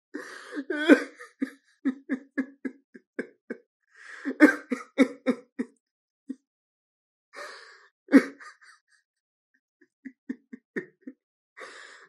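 A man sobbing: a gasping in-breath followed by a run of short, shaking sobs, several a second, repeated about three times, with another gasp starting near the end.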